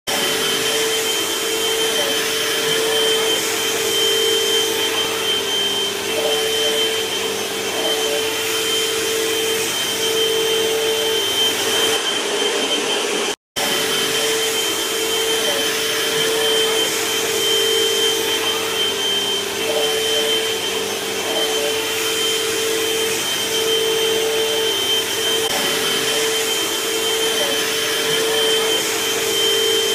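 Upright vacuum cleaner running steadily over carpet, a constant motor hum with a thin high whine above it. The sound drops out completely for a moment about halfway through.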